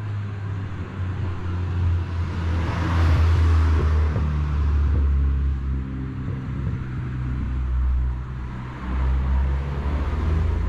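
A car's engine with a steady low hum, and road noise that swells and fades about three seconds in as the vehicle passes. A second, smaller swell comes near the end.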